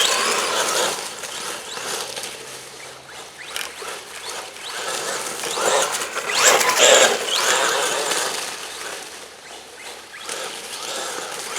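Arrma Big Rock 3S BLX RC truck driving on dirt with chainsaw-chain wheels: its brushless motor whines up and down with the throttle while the chain-wrapped tyres churn and spray dirt. The sound swells loudest about six to seven seconds in.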